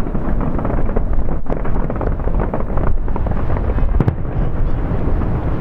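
Distant fireworks display: many shell bursts merge into a continuous rumble, with a sharper bang about four seconds in.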